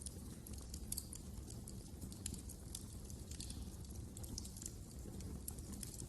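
Wood fire crackling in a fireplace: quick, irregular sharp pops and ticks over a low, steady rumble of the flames.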